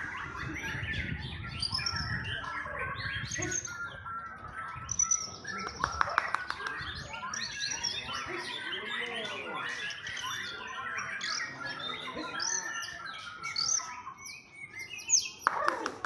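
Several caged white-rumped shamas (murai batu) singing over one another, a dense chorus of whistled phrases and trills. Spells of rapid clicking notes come around six seconds in and again near the end.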